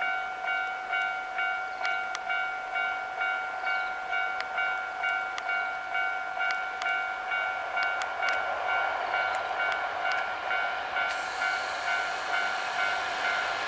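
Japanese level-crossing warning bell ringing, an electronic ding repeating about twice a second. From about halfway in, the running noise of an approaching Hankyu 9300 series train builds up under it and grows louder toward the end.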